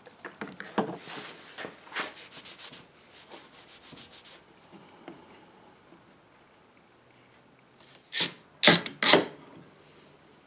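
A paper towel rubbing and scrubbing in quick strokes for about four seconds. After a pause, three loud sharp clacks in quick succession as woodworking clamps are fitted to the table's edge.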